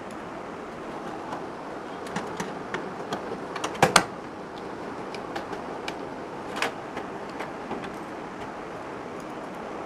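Scattered clicks and knocks of a motherboard being handled and fitted into a metal PC cabinet, a cluster about two to four seconds in with the loudest knock near four seconds, and another knock a little later, over a steady background hiss.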